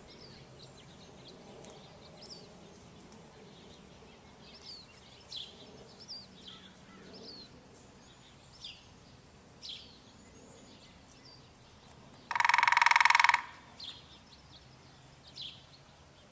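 Small birds chirping with short, high, falling notes. About twelve seconds in, a woodpecker drums once in a loud, steady burst lasting about a second.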